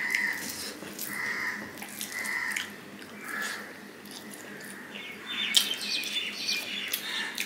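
Close-up eating sounds: fingers mixing and squishing rice with curry on a plate, and chewing with wet mouth clicks. A bird chirps repeatedly in the background, short calls about once a second at first, then quicker, higher chirps in the second half.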